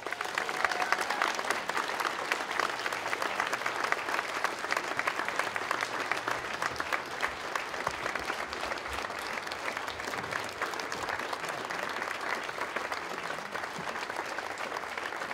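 Audience applauding: steady, dense clapping that eases off slightly in the second half.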